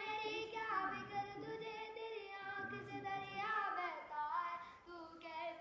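A boy singing unaccompanied, drawing out long notes that slide up and down in pitch.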